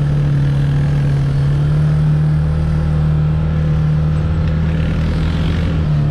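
Engine of an off-road vehicle running steadily while it drives over sand, heard from on board. The drone holds an even pitch and steps up slightly about two seconds in.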